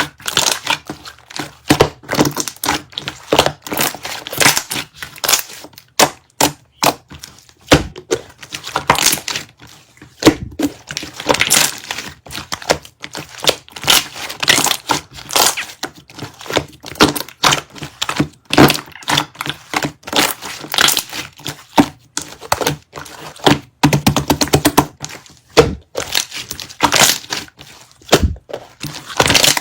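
Slime being squished and pressed by hand, giving a dense, irregular run of crackling clicks and pops.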